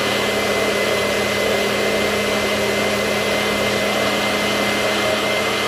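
Magic Bullet blender motor running steadily under load, blending strawberries, ice cream and milk into a thick milkshake, with a steady hum and a thin high whine over the churning.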